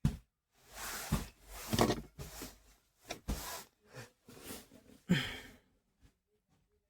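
Rustling and handling of a cloth pad being fitted inside a car cabin, with a few light knocks.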